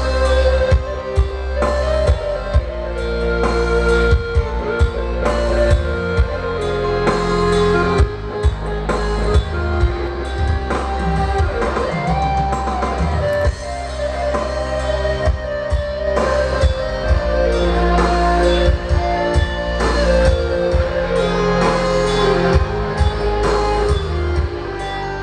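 Live Minang pop band playing an instrumental passage of a song over PA loudspeakers: a sustained melody line over a steady drum beat and heavy bass.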